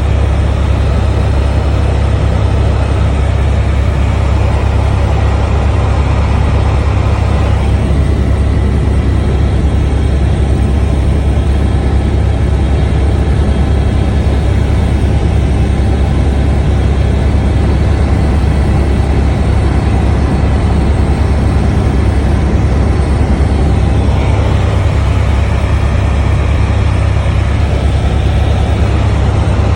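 Helicopter in flight: loud, steady rotor and engine noise, heaviest in the low end.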